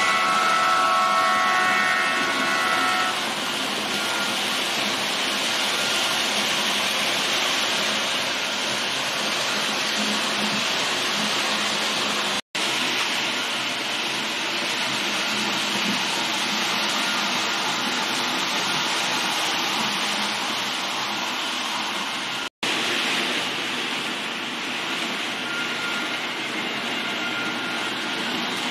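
H0-scale model train, a Roco ÖBB 1216 Taurus electric locomotive with a sound decoder pulling eight four-axle tank wagons, running on the track with a steady rushing noise. A few steady tones sound in the first three seconds, and the sound cuts out suddenly and briefly twice, about 12 and 22 seconds in.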